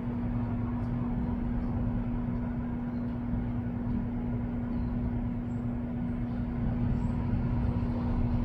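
Steady low rumble of vehicle noise with a constant hum running underneath.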